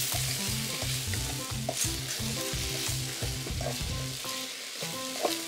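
Broccoli, carrot and shiitake sizzling in oil in a nonstick wok as a spatula tosses and scrapes them, stir-frying to mix in the just-added seasoning sauces.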